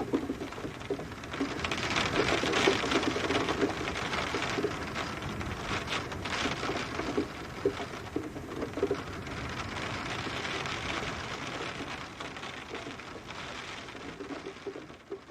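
Rain falling: a steady hiss with dense pattering of drops striking a surface. It swells a couple of seconds in and fades away near the end.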